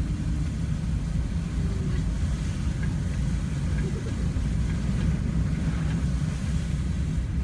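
Car interior sound while driving slowly through floodwater: a steady low rumble of engine and tyres with a faint hiss of water.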